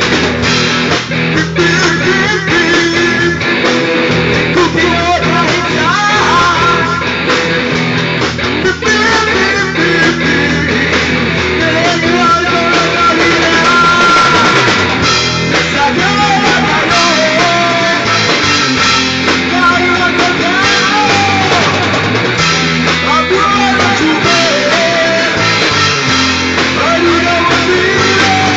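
Rock band playing a song: guitar and drum kit, with a singing voice over them.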